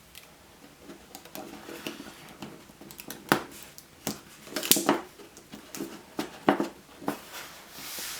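Scattered light clicks and taps, about a dozen, from small objects being handled and set down on a workbench while a mitered frame is clamped.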